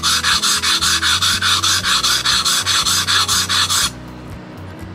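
Steel blade of a hand-forged Shozaburo tailor's shears scraping back and forth on a wet whetstone in quick, even strokes, about seven a second, as its edge bevel is honed at a steep angle; the strokes stop about four seconds in.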